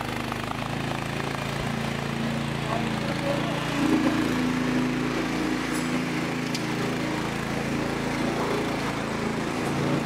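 Small engine of a stand-on mini wheeled skid steer loader running as the machine drives, its pitch rising for a few seconds about four seconds in.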